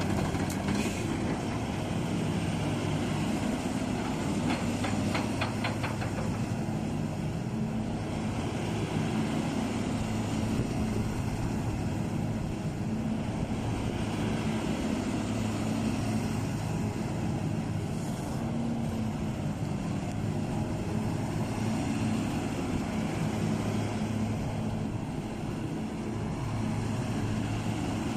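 Diesel engine of a SANY SY235H 23.5-ton crawler excavator running steadily, its pitch easing up and down a little. A brief run of rapid clicks comes about four to six seconds in.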